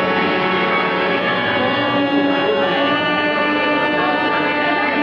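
Harmonium playing sustained chords, with no singing and no drumming. The chord shifts about two seconds in.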